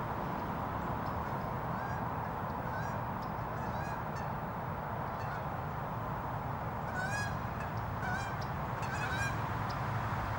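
Birds calling: short, repeated calls, a few at a time, that come thicker and louder in the second half, over a steady low background rumble.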